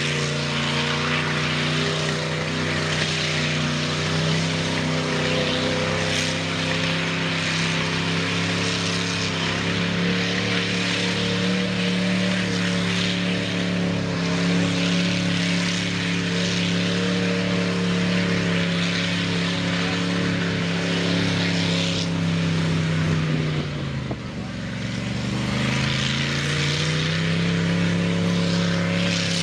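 Ford 460 big-block V8 on open headers running at steady high revs. About three-quarters of the way through the revs drop briefly, then climb back up.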